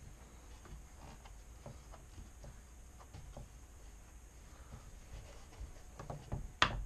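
Hands pressing and rubbing grip tape onto a skateboard deck: faint scattered taps and scratches, with a few sharper knocks near the end, the loudest just before it ends.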